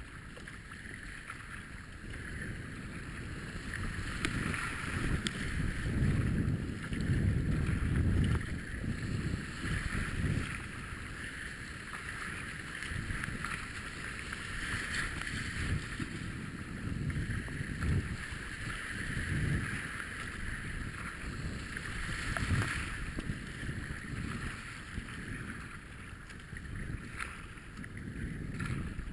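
Rushing whitewater of a river rapid heard from a kayak, with paddle blades splashing into the water and wind buffeting the microphone in low gusts. Loudest from about four to ten seconds in, as the boat runs the wave train.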